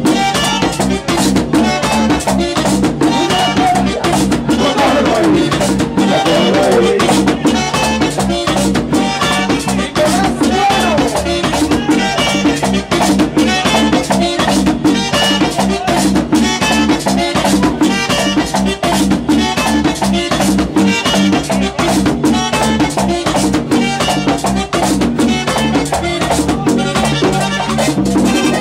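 Latin dance-band music with drums and a rattle-type percussion instrument keeping a fast, steady beat under the melody.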